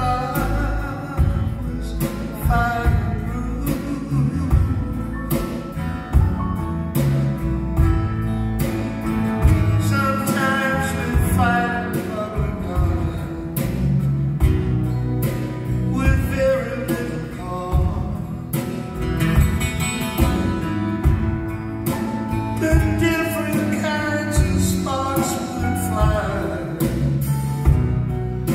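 Live band playing a slow country-tinged song, led by strummed acoustic guitars, with a male voice singing over it.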